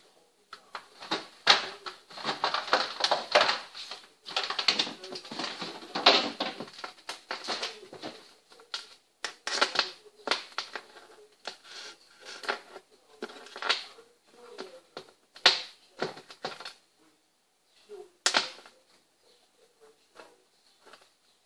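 Stiff clear plastic packaging crackling and clicking as it is handled and pulled away from a gaming headset, in dense irregular bursts for the first several seconds, then a few separate clicks and knocks.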